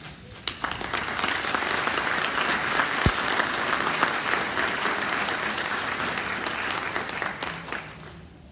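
Audience applauding, starting just after the beginning and dying away near the end, with one sharp thump about three seconds in.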